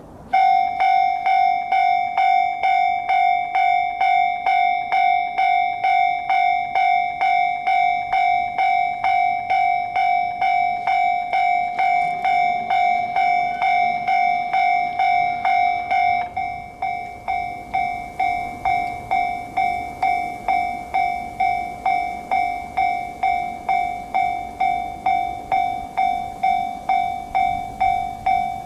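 Japanese railroad crossing warning bell starting up and ringing steadily, about two strikes a second. Each strike is a clanging two-tone ring. About 16 s in it gets noticeably quieter and keeps ringing.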